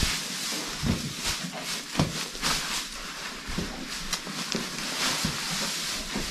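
Draft horses shifting about in their stalls: scattered knocks and thumps over a steady hiss.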